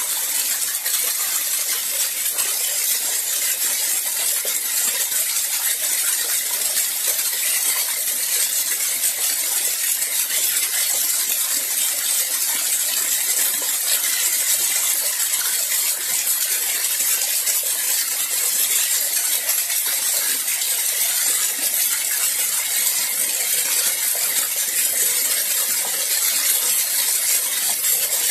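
Water from a natural mountain spring spilling down a small rocky cascade: a steady, close splashing and spattering rush, bright and hissy.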